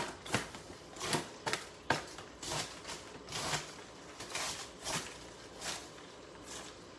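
A wooden spoon stirring in a metal stockpot: irregular knocks and short scrapes against the pot, about a dozen, thinning out near the end.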